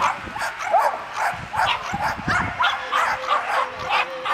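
A dog barking in short, high yips, over and over at about three a second.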